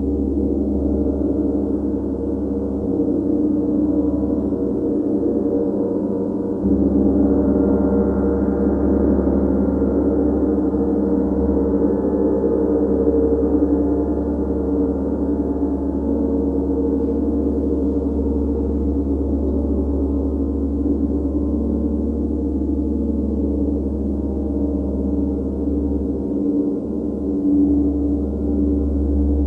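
Large chau gong (tam-tam) played with a mallet, a continuous sustained drone of many overlapping tones that swells about seven seconds in and again near the end.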